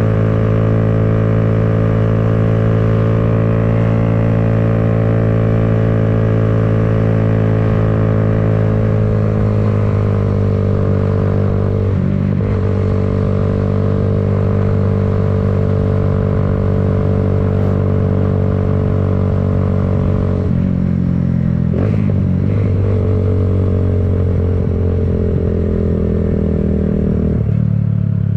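A 2017 Kawasaki Z125's 125 cc single-cylinder four-stroke engine running steadily. Its note shifts and dips a few times, about ten seconds in, again at twelve and around twenty. A couple of short clicks come near the end.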